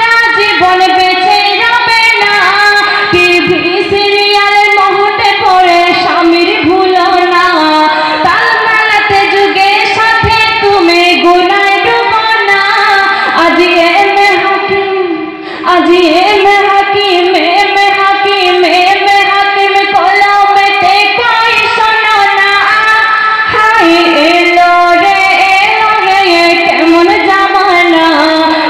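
A young woman singing a Bengali Islamic gazal solo into a microphone, her voice amplified, with a brief breath pause about halfway through.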